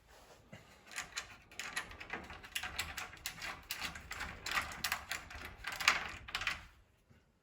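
Ratchet wrench clicking in quick runs of strokes as a bolt is tightened, stopping near the end.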